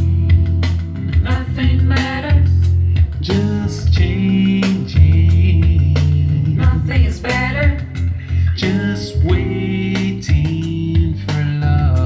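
A slow song with a singer over guitar and a strong, deep bass line, played from a CD through a vintage hi-fi: JVC RX-212 receiver driving handmade Ciare-design loudspeakers, with the Sansui SE-3100 graphic equalizer switched in.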